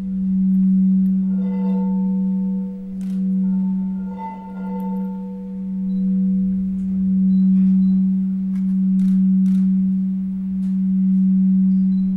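Singing bowl ringing one steady low tone that swells and fades in slow waves about every two seconds, its higher overtones brightening twice, with a few faint clicks.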